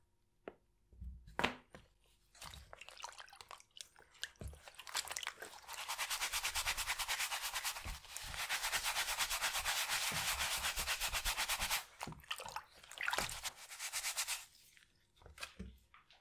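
A brush scrubbing a muddy sneaker in fast, even strokes. It starts about five seconds in, pauses briefly near the middle and stops about fourteen seconds in. Scattered taps and handling noises come before and after.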